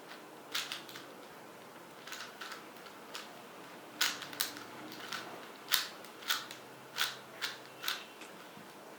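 Plastic layers of a Shengshou 4x4x4 puzzle cube being turned by hand: a string of sharp clicks and clacks at an uneven pace, one or two a second, louder and closer together in the second half.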